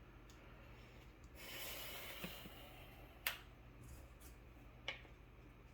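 Faint handling of a removed dishwasher pump impeller clogged with debris: a brief rustle, then two sharp clicks a second and a half apart.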